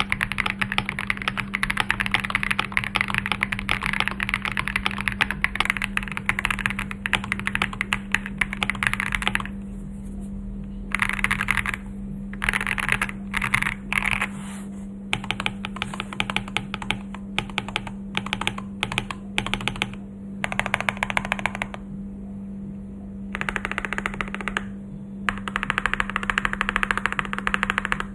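Typing on an FL-Esport OG98 mechanical keyboard with its stock switches. A long run of fast continuous keystrokes gives way about ten seconds in to shorter bursts and single presses with pauses between. A steady low hum sits underneath.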